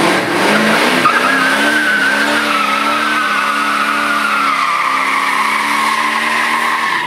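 Burnout: a 1979 Camaro's carbureted 350 small-block V8 held at steady revs while the rear tyres spin and squeal on the pavement. The wavering tyre squeal slowly drops in pitch.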